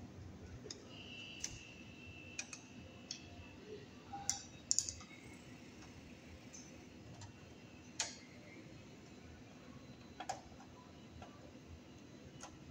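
Sparse, faint clicks and taps of a hand tool and copper wires against a metal breaker panel as wires are fastened under the terminals and bent into place.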